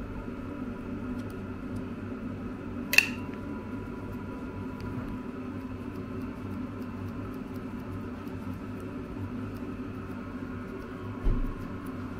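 Steady low hum, with one sharp click about three seconds in and a soft thump near the end.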